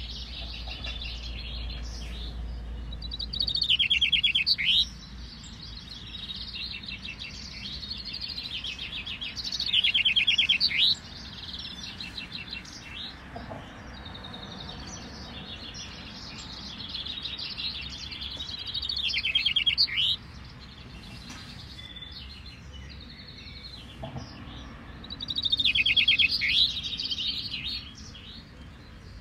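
Several male chaffinches singing their short songs, a fast run of notes ending in a downward flourish, as in a finch-singing contest. One near bird sings loudly four times, roughly every six to nine seconds, while others farther off sing more faintly in between.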